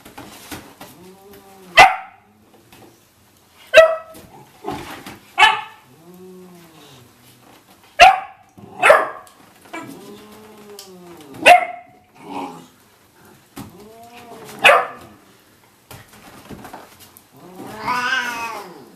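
Labrador puppy barking at a Siamese cat in sharp yaps, about seven of them spread out, while the cat growls low between the barks. Near the end, as the cat swats at the puppy, a longer drawn-out snarl of about a second.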